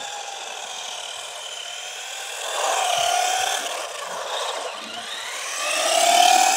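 Electric motor and geared drivetrain of a Force RC Outbreak 4WD radio-controlled monster truck whining as it accelerates and slows, the pitch rising and falling, running on its stock nickel-metal hydride battery. It grows louder about two and a half seconds in, and again near the end as the truck comes close.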